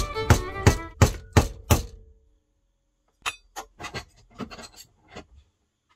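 Six mallet blows, about three a second, driving a walnut handle onto the tang of a gouge clamped in a vise. After a short pause comes a run of small, sharp cracks: the walnut handle splitting.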